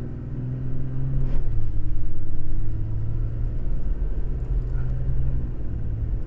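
Toyota Tacoma pickup driving on beach sand, heard from inside the cab: a steady engine drone over a low rumble. The engine note swells and climbs about a second in, then eases back to a steady drone.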